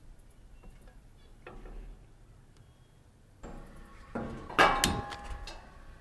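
A gas grill's side burner is lit with a click lighter and hisses steadily from about three and a half seconds in. Then a nonstick skillet is set on the burner's metal grate, with a couple of sharp knocks that ring briefly.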